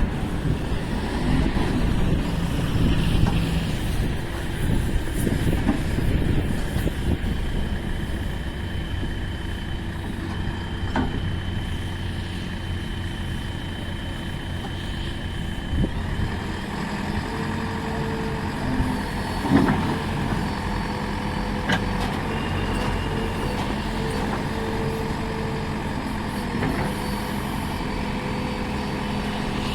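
JCB 3DX Plus backhoe loader's diesel engine running steadily while working, with a few short knocks from the machine now and then.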